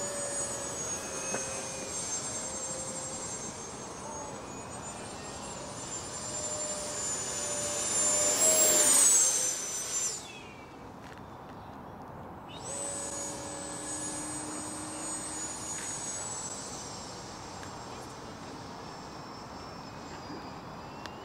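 Electric ducted fan of a Freewing L-39 RC jet whining in flight, with a high-pitched tone and several overtones. It swells to a loud fly-past about eight to nine seconds in, its pitch falling as it goes by, drops away briefly, then carries on as a steadier, quieter whine.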